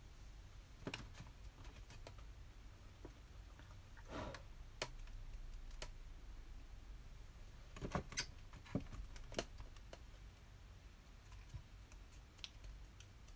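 Faint, irregular clicks and light taps, clustered a second in, around four to five seconds, around eight to nine and a half seconds, and near the end, over a low steady hum.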